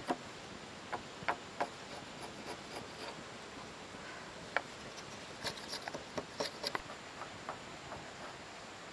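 A broad wood chisel pushed by hand, paring and scraping the end of a timber beam: irregular short scrapes and small clicks, busiest a little past halfway.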